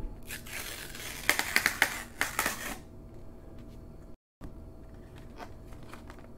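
A sealed paper mailer being torn open along its tear strip: a crackling rip of about two and a half seconds with several sharp snaps, followed by softer paper rustling as it is unfolded.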